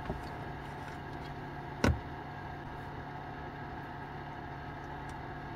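Car-type mini fan heater running on its hot setting: a steady, noisy whir and hum from its fan. A single sharp click about two seconds in.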